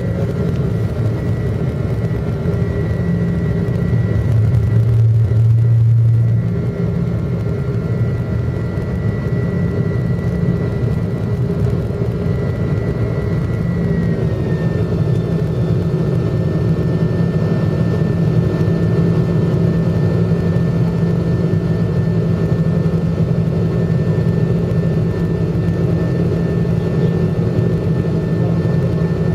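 Airliner jet engines heard from inside the passenger cabin: a steady whine over a deep hum. The whine steps slightly down in pitch about halfway through.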